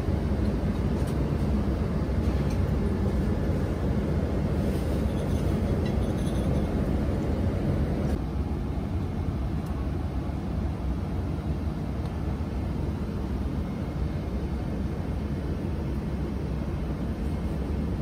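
Airliner cabin noise at cruise: a steady low rumble and rush of air, with a few faint clicks. The hiss is a little softer from about eight seconds in.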